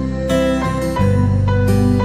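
Background music on acoustic guitar, with plucked notes and a change of chord about a second in.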